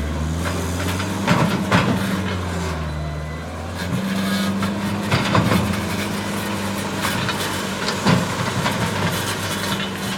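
New Holland L170 skid steer's diesel engine running steadily, with its note changing about four seconds in, and several sharp metallic knocks and clanks from the machine as it works.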